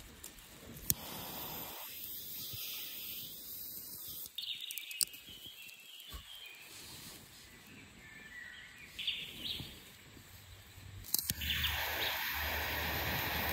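Jet torch lighter clicking on and hissing, briefly near the start and then steadily and louder from about eleven seconds in, with scattered faint clicks and a few short bird chirps in between.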